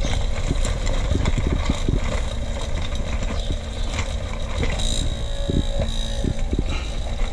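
Rotary rock tumbler running: its electric motor hums steadily while the rubber barrel turns, and the rocks and grit inside tumble with a low rumble and irregular knocks.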